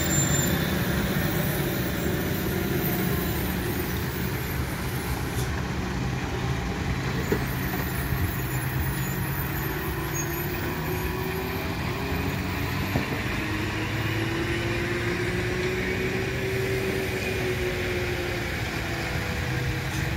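Loaded lorry's diesel engine running at low speed through a tight hairpin bend, a steady low drone whose pitch drifts slowly up and down as it passes close by.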